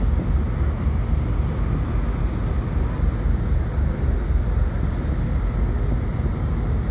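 Wind buffeting the microphone on the open deck of a ship at sea: a heavy, fluttering low rumble over a steady rush of wind and water.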